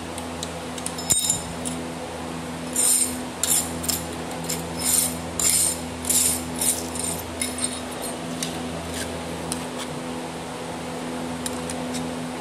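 Metal clinks and rattles from handling an angle grinder while its cutting disc is taken off and refitted, with the disc and flange nut knocking on the spindle, over a steady low hum. The clinks come in a cluster a few seconds in, with a few more near the end.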